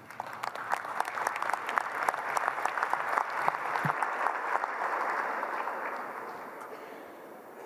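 Seated conference delegates applauding: many hands clapping, building over the first second and tapering off over the last couple of seconds.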